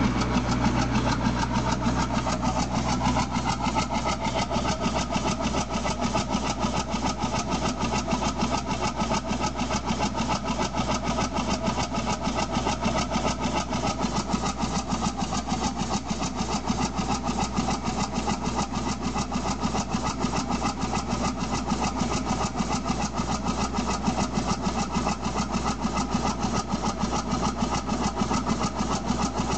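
Robb Engineering 10 x 10 horizontal steam engine of about 1915 running steadily on compressed air, its exhaust beating rapidly and evenly, with a steady low hum underneath.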